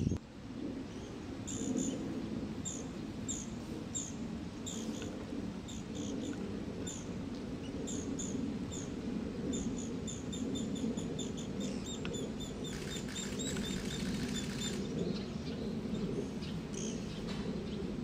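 Japanese pygmy woodpecker nestling calling from its nest hole: a long series of short, high chirps, a few a second, quickening into a rapid run about twelve seconds in. A steady low rumble runs underneath.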